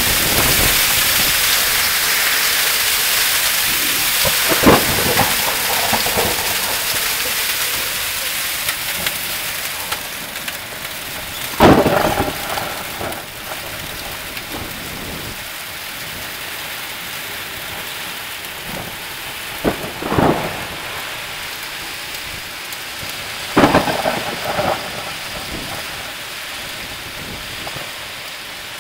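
Hail and rain beating down steadily, the hiss slowly easing off. A few sharp single knocks stand out over it, the loudest about twelve seconds in.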